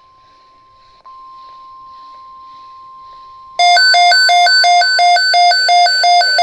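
NOAA Weather Radio's 1050 Hz warning alarm tone, a steady single-pitch tone that steps louder about a second in. About three and a half seconds in, a weather radio receiver's own alarm cuts in much louder over it: an electronic beeping that alternates a low and a high pitch about three times a second, signalling a warning-level alert.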